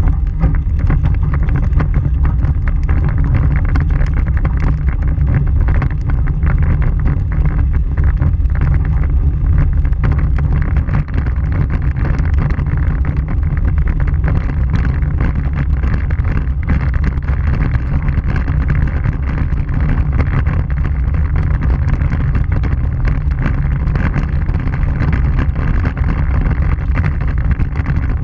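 Vehicle driving down a rough gravel road, heard from a microphone on its front bumper: a steady low rumble of tyre and road noise with wind on the microphone, and frequent small clicks of stones.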